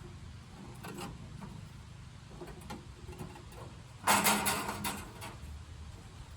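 A few knocks, then a short, loud clatter of rapid knocks about four seconds in, over a low steady hum.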